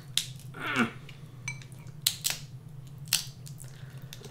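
King crab leg shells being cracked and snapped apart by hand: a few sharp cracks and clicks, with a short creak falling in pitch just before the first second.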